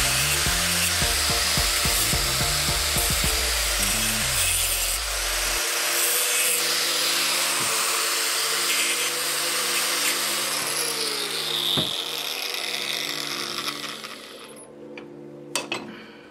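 Angle grinder with a 4.5-inch, 0.040-inch cutoff wheel cutting a slot into the end of a steel round-stock rod, a steady whine with the hiss of the cut. Near the end the grinder stops and spins down, followed by a couple of clicks.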